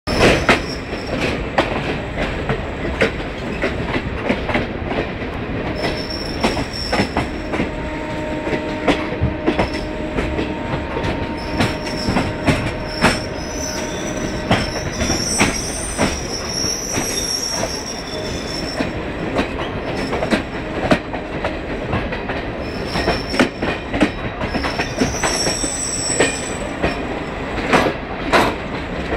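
Passenger trains rolling side by side at low speed: a steady rumble of wheels on rail, with frequent sharp clicks over rail joints and high wheel squeals that come and go.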